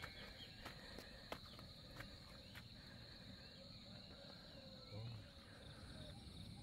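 Faint outdoor ambience: a steady, high insect drone with scattered soft ticks.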